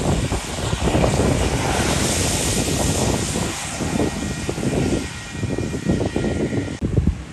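Wind buffeting the microphone in gusts, a loud irregular rumble with a hiss above it, dropping away sharply at the very end.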